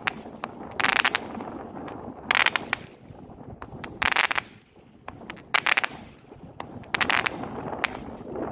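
Weco Buzzer, an 8 mm 25-shot firework battery, firing shots that each burst into crackling in the air, about one every second and a half.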